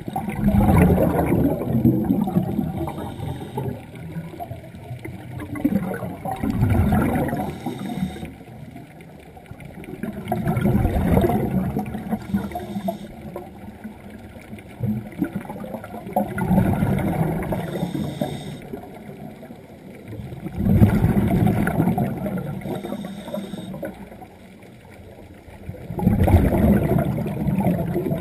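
Scuba diver breathing through a regulator, recorded underwater: a bubbling rush of exhaled air comes about every five seconds, six times, with quieter stretches between breaths.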